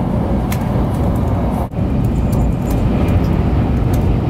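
Shinkansen bullet train running, a steady low rumble with a few light clicks. The noise dips sharply for a moment about one and a half seconds in, then carries on.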